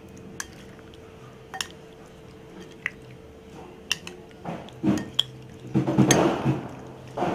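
Spoon clicking now and then against a glass bowl, then wet squelching as raw prawns are mixed by hand and spoon with curd and spice paste, loudest over the last few seconds.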